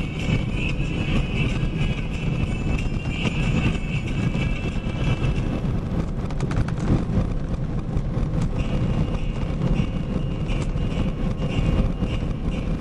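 Box truck driving, heard from inside the cab: a steady low engine and road rumble, with a few short knocks about six to seven seconds in.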